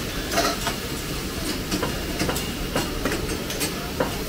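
A karahi being stirred: a metal spatula clinks irregularly against the pan over a steady hiss.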